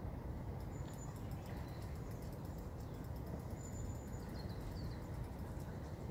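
Faint high-pitched bird chirps and short whistled calls over a steady low outdoor rumble, the calls clustering about a second in and again around four seconds in.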